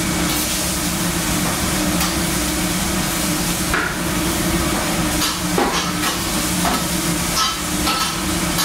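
A metal spatula scraping and clanking against a hot flat-top griddle as cooked vegetables are scraped up, with sizzling throughout. There are several short sharp scrapes in the second half, over a steady hum.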